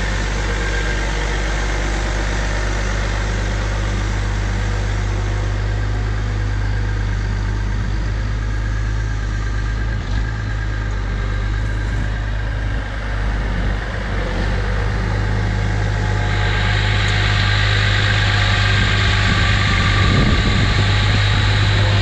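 Case IH 9380 QuadTrac's six-cylinder 14-litre Cummins diesel running steadily under load while pulling a plough. The low drone grows louder and brighter from about two-thirds of the way in as the tractor draws close.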